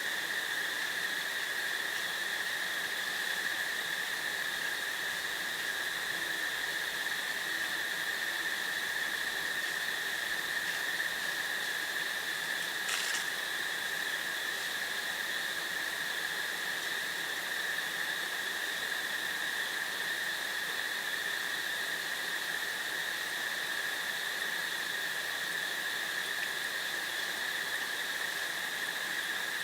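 A steady, unbroken insect chorus over a constant hiss, with one short click about 13 seconds in.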